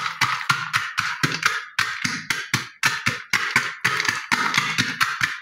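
Wooden pestle pounding roasted makhana (fox nuts) in a metal pot, quick even knocks at about four a second, crushing them coarsely. The pounding stops suddenly at the very end.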